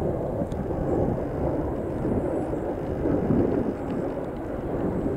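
Distant rumble of a pair of RAF Panavia Tornado GR4 jets passing overhead, their RB199 turbofan engines heard as a steady low roar that swells slightly.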